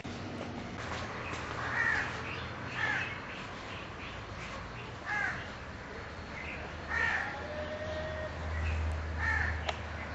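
Crows cawing, with repeated calls a second or two apart, over a low steady hum that grows louder near the end.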